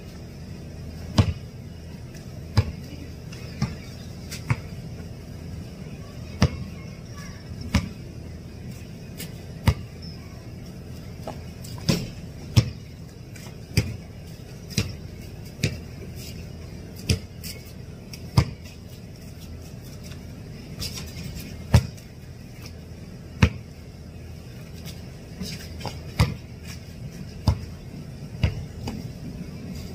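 A basketball bouncing on a concrete court and striking the hoop as it is dribbled and shot: a string of sharp thuds at uneven intervals, at times about one a second.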